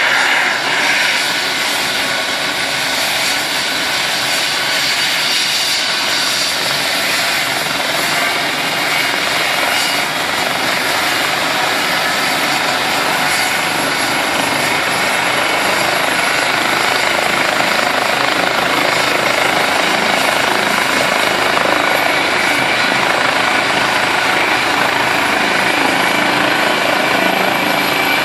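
Eurocopter EC135 rescue helicopter running on the ground with its twin turbines and rotor turning: a steady, loud engine and rotor noise. A thin high whine comes in about halfway through and creeps slightly upward.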